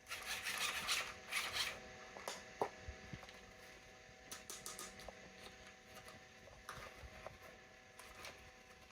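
Rustling and handling of toy packaging, loudest in a burst of rustling over the first two seconds, then light scattered clicks and taps.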